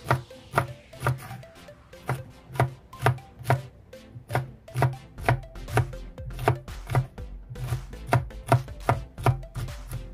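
Knife chopping green beans into rounds on a wooden cutting board: a steady run of sharp strokes, about two a second, each ending in a dull knock of the blade on the board.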